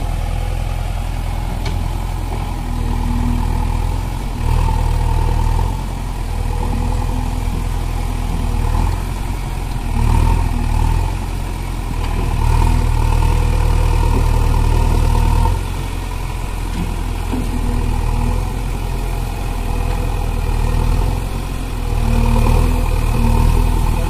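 JCB 3DX backhoe loader's diesel engine running steadily and revving up several times for a few seconds at a time as the front loader arm and bucket are worked.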